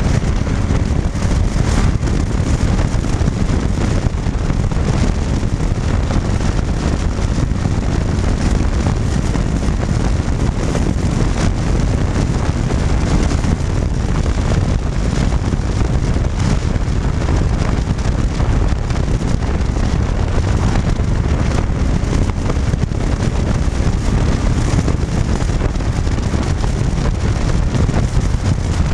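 Steady wind rush buffeting the microphone of a camera mounted on a moving cruiser motorcycle, loudest low down, with the bike's running and road noise mixed in.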